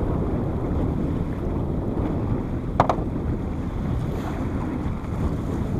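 Small motorboat under way on choppy sea: steady wind rumbling on the microphone over the rush of water. A short sharp knock about three seconds in.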